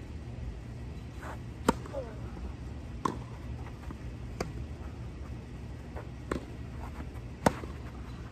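Tennis rally: rackets striking the ball back and forth, a sharp pop every second or so. The two loudest hits come about two seconds in and near the end, over a steady low rumble.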